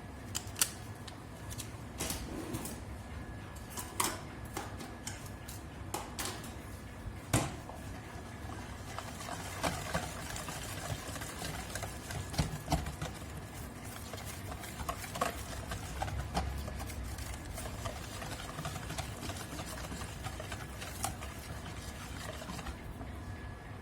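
Irregular clicks and taps of kitchen utensils and containers handled while cake batter ingredients are added and mixed, over a faint steady hum.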